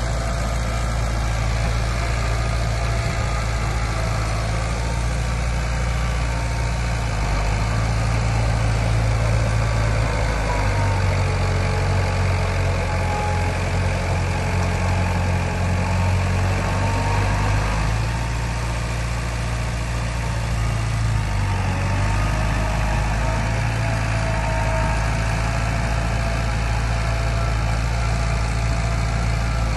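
Diesel engine of heavy earthmoving machinery running continuously, its pitch sagging in the middle and rising again as the load and engine speed change.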